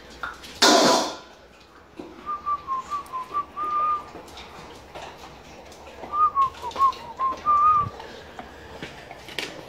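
A Doberman whining for food in short, wavering high notes, in two runs of about two seconds each. Just under a second in there is one loud, sharp sound.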